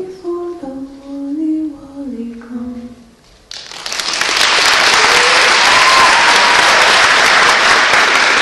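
The last notes of a song fade out, and about three and a half seconds in an audience breaks into loud applause that goes on steadily.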